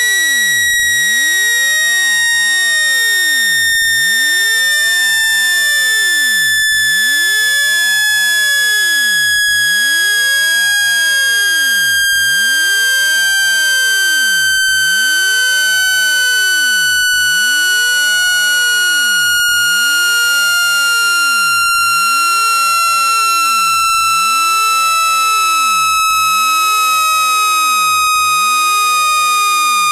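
Electronic speaker-cleaning tone: one loud, buzzy, high tone that slides slowly and steadily down in pitch without a break, played to vibrate water out of a phone speaker.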